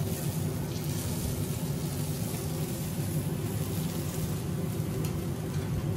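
Steady low rumble of a gas grill running, with peach halves cooking on its grate.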